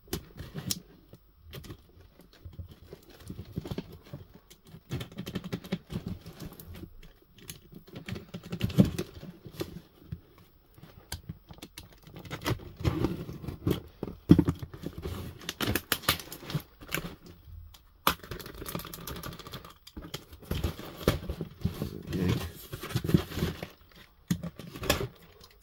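Box cutter slicing through packing tape on a cardboard box, with scraping, tape tearing and the cardboard knocking and rustling in the hands. The box flaps are pulled open near the end.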